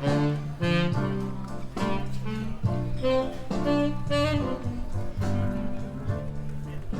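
Instrumental background music in a jazz style, a melody moving note to note over a steady bass line.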